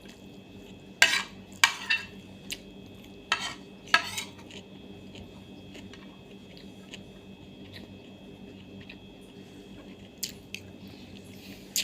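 Cutlery clinking against a plate or bowl while eating: about five sharp clinks in the first four seconds and two more near the end. A faint steady hum runs underneath.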